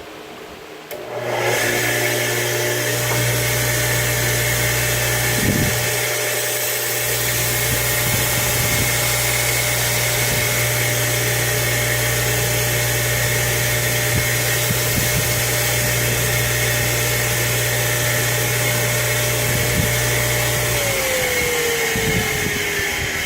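North Ridge Tool belt grinder switched on about a second in and running steadily, with a constant motor hum and a steady tone over a rushing noise. Near the end it is switched off and the tone falls as the grinder winds down.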